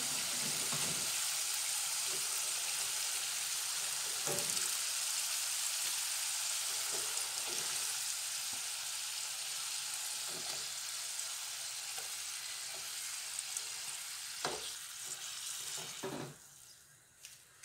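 Potato chips deep-frying in hot oil, a steady sizzle that slowly thins out, with a few light clicks of metal tongs in the pan as chips are lifted out. The sizzle drops away sharply near the end.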